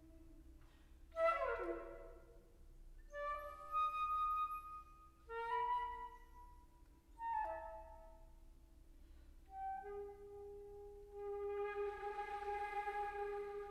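Solo flute playing a free, slow phrase: a quick downward run about a second in, then separate held notes with short pauses between them, the last one long with audible breath in the tone.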